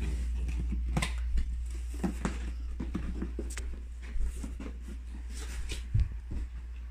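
Cardboard toy box being handled and shifted on a carpet: scattered light taps, scrapes and rustles, with a low thump about six seconds in, over a steady low hum.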